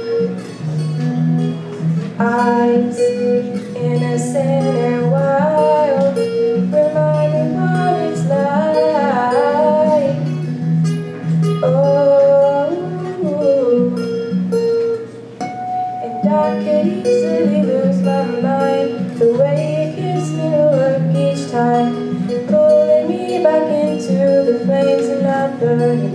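Acoustic guitar playing steady chords while a young woman sings a pop song into a microphone, with a short break in the singing about halfway through as the guitar carries on.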